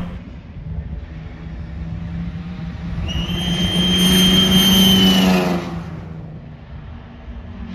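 A car passing at speed on a race track: its engine swells to a peak about four to five seconds in with a high, steady whistle over it, then fades as it goes by.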